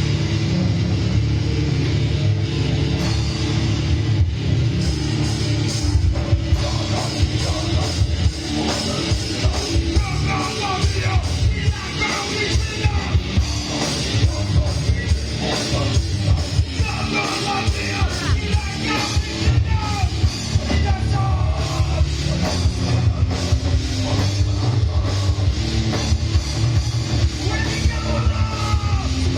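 A live heavy rock band playing loudly and without a break: drum kit, distorted electric guitars and bass, with sung and shouted vocals over them.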